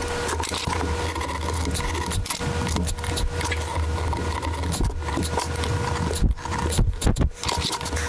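Narrow hand carving chisel cutting and scraping along the edges of a relief-carved pattern in a wooden board: a continuous dry scratching, broken by a few brief silences near the end.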